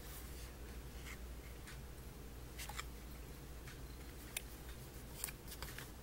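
Faint crinkles and small clicks of a plastic Colgate Enamel Health toothpaste tube being turned and squeezed in the hands, a few light ticks spread through, with a quick cluster of clicks near the end as a thumb works at the flip-top cap.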